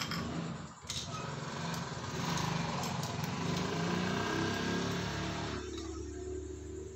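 A small engine running steadily, close by and loud; near the end its higher noise falls away, leaving a low hum that then stops.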